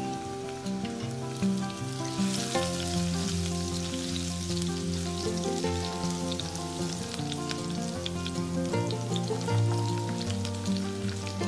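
Hot oil sizzling and crackling in a frying pan as fennel seeds and chopped green chilli fry, setting in strongly about two seconds in. Background music plays throughout.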